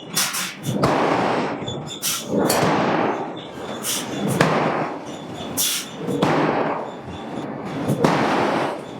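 Hydraulic forging hammer striking a steel billet: repeated heavy blows at an uneven pace of about one a second, each followed by a rush of noise.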